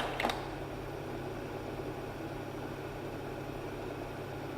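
Slide projector running with a steady low fan hum. A last click or two of the slide-change mechanism comes right at the start.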